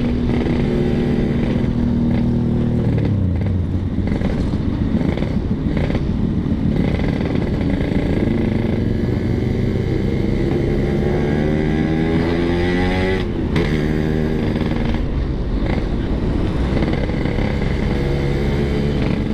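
Yamaha RX-King 135 cc two-stroke single-cylinder engine pulling under way, recently rebuilt after seizing. Its pitch drops about three seconds in, climbs steadily from about eight seconds, breaks and drops near thirteen seconds as it shifts, then climbs again. Wind rushes over the microphone throughout.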